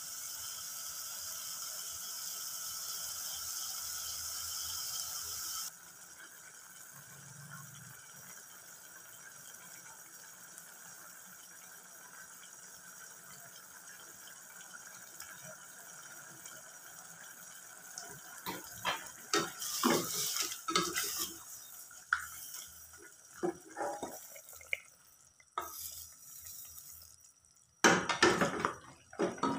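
Chicken sizzling in an aluminium pressure cooker, a steady hiss that cuts off abruptly about six seconds in. After a quieter stretch, a wooden spatula stirs and knocks against the cooker's sides in several bursts of clatter, the loudest near the end.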